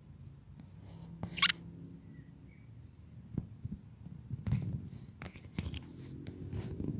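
Hens murmuring softly in low, rumbling tones, with one loud, short, scratchy noise about a second and a half in and scattered light taps and clicks.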